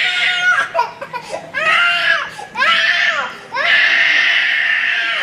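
A small child crying: a short wail, then two rising-and-falling wails, then one long held wail from about three and a half seconds in.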